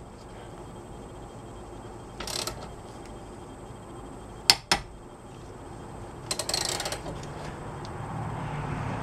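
Hand ratchet turning the forcing screw of a small puller that is pressing a tapered tie rod end out of the steering knuckle: two short runs of ratchet clicking, with two sharp metallic clicks between them.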